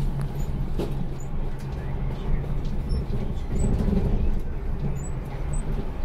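City bus engine and road noise heard from inside the cabin while the bus drives between stops: a steady low hum over an even rumble.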